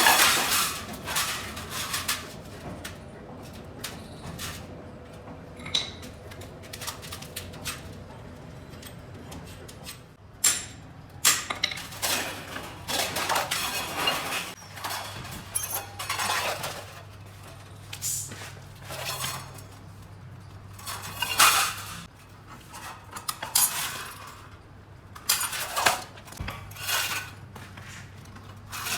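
Irregular clanking and clattering of stainless steel sheet-metal stove parts being handled and worked, with a faint steady low machine hum setting in about halfway through.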